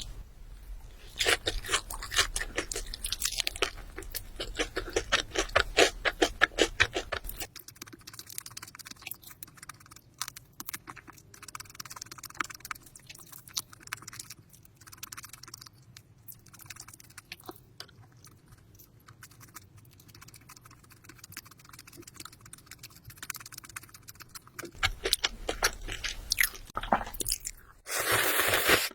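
Close-miked chewing of crunchy fried chicken: dense crackly crunching for the first several seconds, then quieter chewing with scattered crunches, and loud crunching again near the end.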